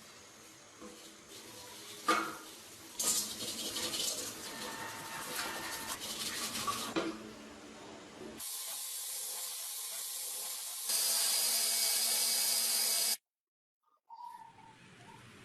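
Several short noisy sounds cut together, then a steady spraying hiss lasting about five seconds that gets louder partway and cuts off suddenly.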